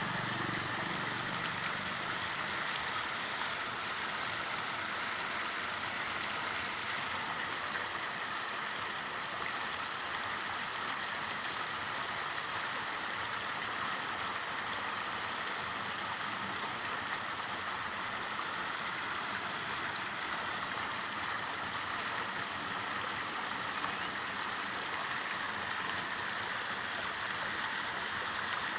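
Steady hiss of rain falling, unbroken and even in level.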